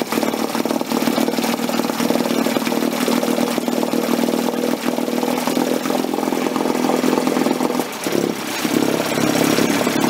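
Two-stroke outboard motor running just after being pull-started. About eight seconds in the sound dips briefly, then picks up again a little louder.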